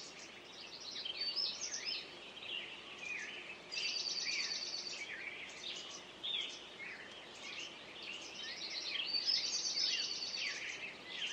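Several small songbirds calling together: a dense run of varied high chirps, with fast trills of repeated notes about four seconds in and again near the end.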